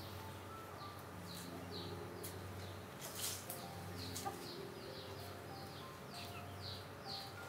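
Soft background music of slow held notes, with small birds chirping in short quick calls, most of them in the second half. There is a brief rustle about three seconds in.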